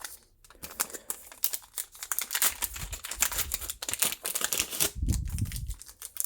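Pokémon booster pack foil wrapper crinkling and trading cards being handled, an uneven run of quick rustles and clicks.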